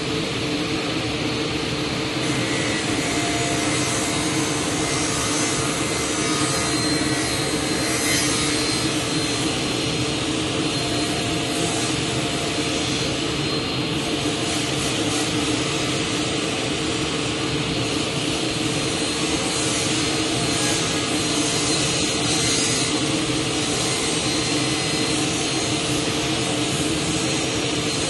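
Table saw running steadily while a white oak board is pushed through the blade. The cut adds a rasping hiss that comes and goes.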